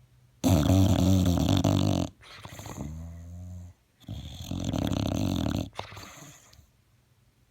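English bulldog snoring loudly: two long snores about three and a half seconds apart, each followed by a quieter breath, the first of these with a whistling tone. The noisy breathing is typical of the breed's short, flat-faced airway.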